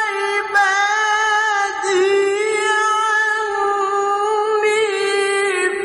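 A male qari reciting the Qur'an in melodic tilawah style. His voice holds long, high notes with small melodic turns.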